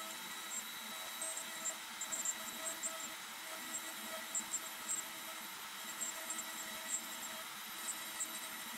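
Euro-Makers Aureus 3X hobby CNC router spindle running steadily while a 6 mm 30° V-bit cuts a 5 mm-deep pass into end-grain hardwood at 750 mm/min. It makes a steady high whine with irregular sharp ticks from the cut.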